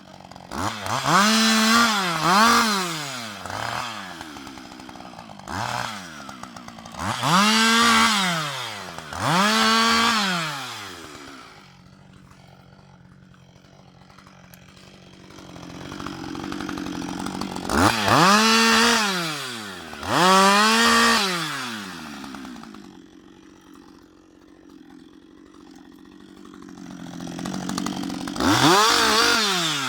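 Husqvarna 560 XP two-stroke chainsaw revved up to full speed in quick bursts, mostly two at a time, and dropping back to idle between them.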